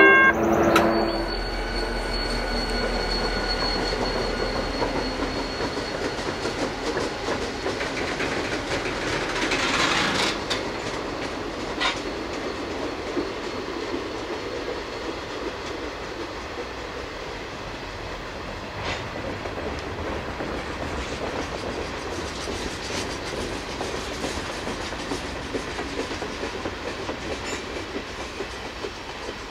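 A work train of flatcars and open hopper cars rolling past, with a steady rumble and rattle of the cars and the clickety-clack of wheels over rail joints. A few sharp clanks are heard, and a thin high wheel squeal is heard in the first few seconds. A train horn chord cuts off at the very start.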